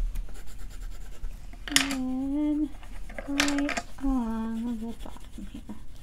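Colored pencils scratching on paper as they shade in. About two seconds in, a voice hums three held notes.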